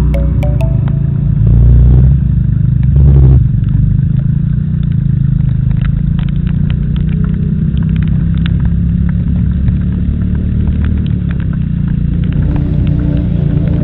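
Steady low rumble of a car driving along a highway, with scattered light ticks and two brief louder surges about two and three seconds in. Music fades out just after the start and comes back in near the end.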